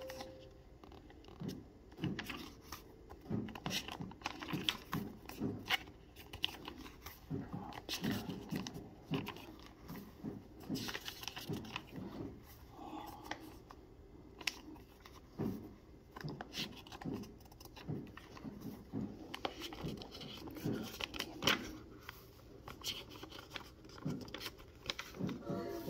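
Pages of a small, worn paper notebook being turned by hand, one after another: irregular paper rustles and flicks, several a second at times.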